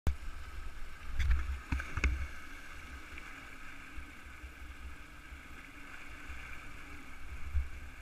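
A person jumps into a river pool, making a splash about one to two seconds in, over the steady rush of rapids. Wind buffets the microphone in low gusts.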